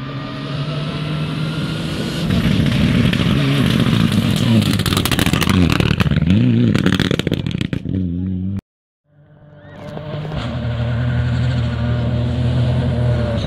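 Rally car at speed on a gravel stage, its engine revving up and down through the pass, with loose gravel clattering as it slides by. After an abrupt cut, a second rally car's engine is heard approaching and getting louder.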